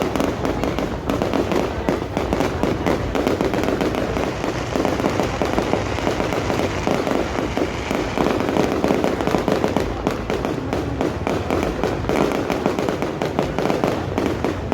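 Fireworks display going off in a dense, continuous barrage: many overlapping bangs and crackles with no pause.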